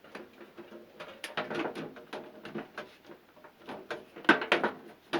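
Irregular clicks and knocks from hands working on a microwave oven, with the sharpest knock about four seconds in.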